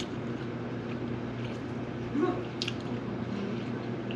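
Wet chewing and mouth clicks from eating skewered mini sausages, close to the microphone, over a steady low room hum. A short low murmur comes about two seconds in.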